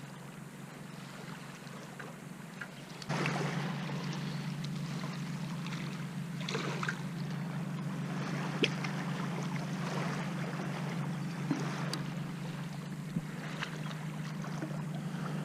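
Water splashing and lapping with scattered clicks while a hooked carp is played on rod and line. A steady low hum comes in suddenly about three seconds in and carries on.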